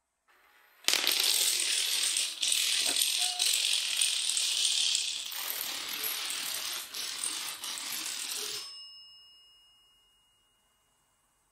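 A long chain of small toy dominoes toppling: a dense, continuous clatter that starts suddenly about a second in and runs for several seconds before thinning out. As it stops, a desk bell in the chain rings faintly and lingers.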